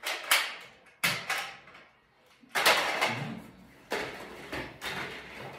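Sharp plastic clicks and clatter as Nerf toy blasters are handled, about half a dozen irregular knocks, the loudest near the start and about a second in.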